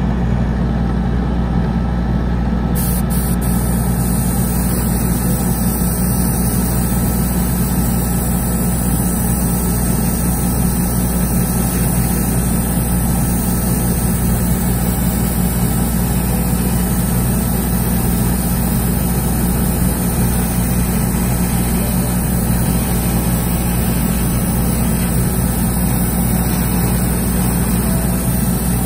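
A painting booth's twin exhaust fans and an air compressor run with a steady hum. From about three seconds in, a double-action airbrush adds a constant hiss as it sprays primer surfacer.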